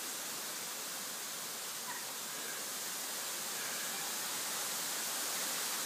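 Steady, even hiss of wet snow falling.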